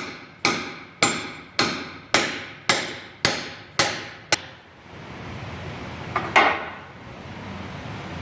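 Hammer blows driving a new axle shaft seal into the rear axle housing of a 1996 Ford F-150. About nine evenly spaced strikes come at roughly two a second, then a pause and a final pair of blows near the end.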